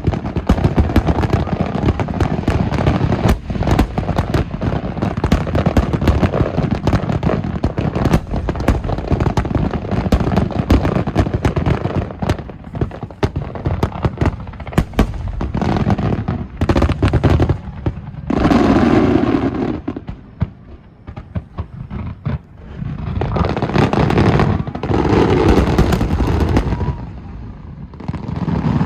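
Aerial fireworks display: a dense barrage of rapid bangs and crackles for about the first twelve seconds, thinning to scattered bangs, with stretches of steadier noise later on.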